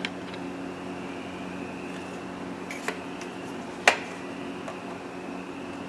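A few sharp clicks and taps, the loudest nearly four seconds in, over a steady low hum.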